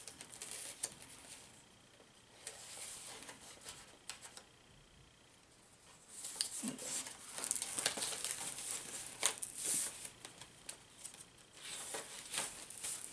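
Paper rustling and crinkling as the pages, tags and flaps of a handmade paper junk journal are turned and handled, quieter a few seconds in and busiest in the second half.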